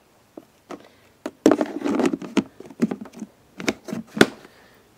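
Plastic tubs and lids being handled: a run of clicks, taps and scrapes of plastic, with a sharp snap a little after four seconds in.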